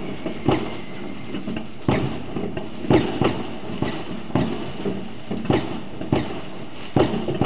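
New Year's Eve fireworks going off across a town: about ten sharp bangs at irregular intervals, over a steady background hiss.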